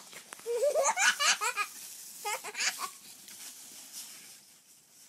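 A person laughing in two bursts, the first about half a second in and the second past two seconds.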